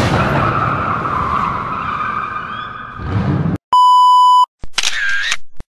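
Car tyres squealing in a drift over engine noise for about three and a half seconds, cut off by a steady 1 kHz test-pattern beep lasting under a second. A short burst of another sound effect follows near the end.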